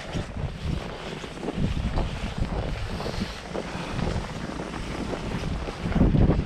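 Wind buffeting the camera's microphone: an uneven, gusting low rumble with a hiss of wind over it, swelling near the end.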